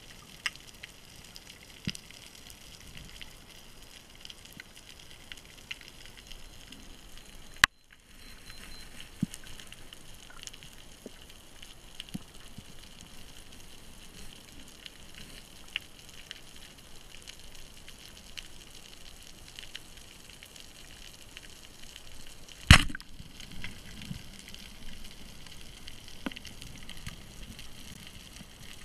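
Underwater ambience with scattered crackling clicks. About 23 s in, one loud sharp bang with a short ring after it: the speargun firing.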